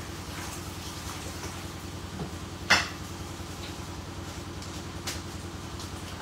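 A machine drones steadily in the background, which the owner says has been running very noisily since a faulty repair. Over it come light clinks of dishes and utensils on a kitchen counter, with one sharp clack a little under three seconds in.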